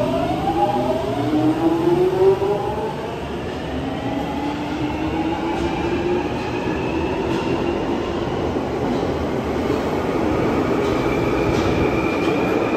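London Underground 1996 Tube Stock train on the Jubilee line accelerating away from a platform. Its traction motor whine climbs in pitch several times in succession over the rumble of wheels on the rails.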